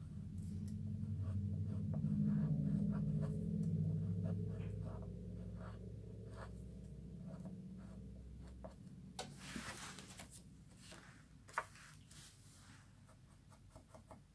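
Faber-Castell eraser pencil scratching in short strokes along the edge of a die-cut card panel, rubbing off excess hot foil that was overfoiled onto the edge. A longer, louder scrape comes a little after nine seconds in, then a sharp click. A low hum underneath swells early and fades out about two-thirds through.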